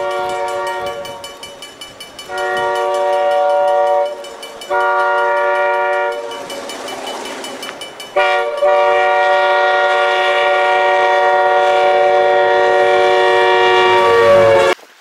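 A train's multi-note air horn sounds a series of blasts: two shorter blasts, then one long blast held for about six seconds that cuts off suddenly near the end. Between the blasts comes a rushing noise of the train plowing through snow.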